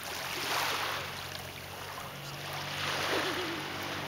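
Small waves washing on a shallow pebbly shore, the wash swelling twice, with a faint steady low hum underneath from about halfway.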